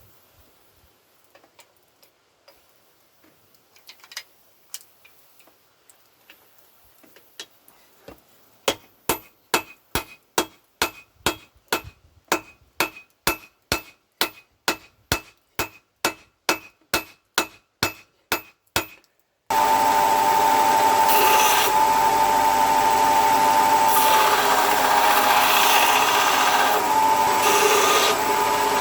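Hammer blows on hot steel over an anvil, struck steadily about twice a second with a metallic ring for some ten seconds after a quiet start. Then a power grinder starts abruptly and grinds steel continuously, its whine dipping in pitch as it bites: the grinding of the hot cut's edge.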